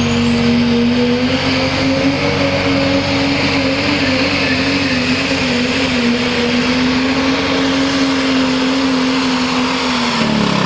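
Diesel engine of a Ford Super Duty 4x4 pickup held at full throttle while it pulls a weight-transfer sled, a steady high-revving drone with a faint high whistle above it. About ten seconds in, the revs fall off quickly as the throttle is released at the end of the pull.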